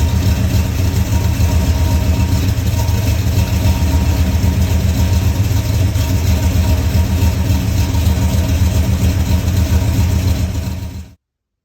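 An engine idling loudly and steadily with a low, pulsing note, cutting off suddenly near the end.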